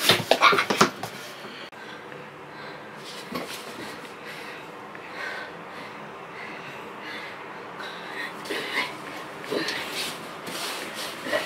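Bedding rustling and rubbing as a person shifts, sits up and pulls a blanket over himself in bed, after a few loud noisy bursts in the first second.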